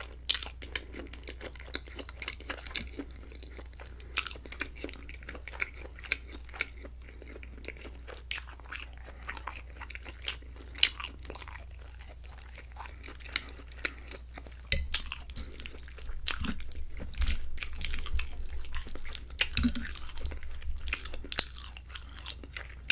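Close-miked chewing of a mouthful of creamy alfredo pasta with chicken and broccoli: wet, sticky mouth clicks and smacks. In the second half there are louder low thumps.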